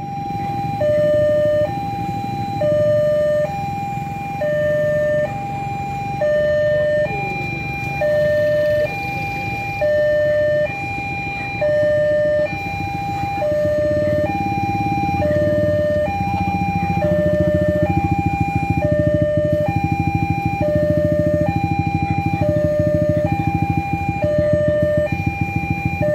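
Railway level-crossing warning alarm: an electronic two-tone signal alternating steadily between a low and a high note, each held just under a second. Under it runs a low engine rumble from the waiting motorbikes, which grows louder about halfway through.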